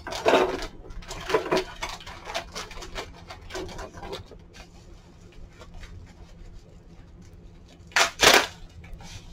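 Clear plastic bag and plastic wrapping crinkling and rustling in the hands while a wrapped china piece is taken out, with a couple of loud crinkles about eight seconds in.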